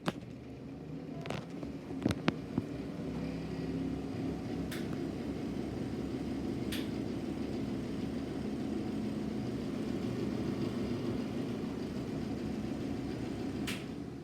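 IXL Sensation exhaust fan running on worn-out bearings, a steady mechanical hum that builds over the first few seconds. A few separate clicks sound along the way, and after a click near the end the hum starts to die away.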